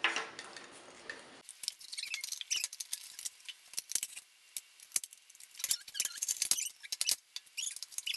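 Plastic toy lab parts being handled on a glass tabletop: a rustle for about the first second and a half, then many sharp clicks and clinks, with a few short high squeaks.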